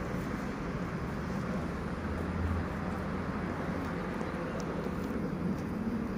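Steady outdoor background noise with a low hum underneath and no distinct events.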